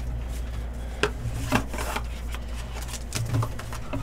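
Hands handling a trading-card box and foil packs: a few short rubbing and rustling sounds, over a steady low hum.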